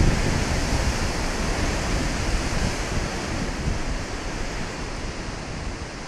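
Atlantic surf breaking on a rocky shore: a steady hiss of spray and washing water that slowly fades, with some wind buffeting the microphone.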